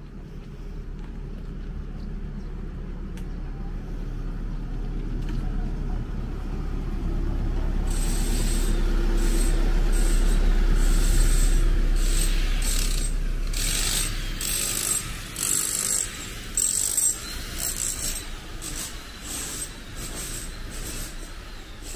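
A heavy vehicle's low engine rumble passing on the street, swelling to a peak about halfway through and then fading. From about a third of the way in come irregular high squeaks and hisses, like brakes and mechanisms working.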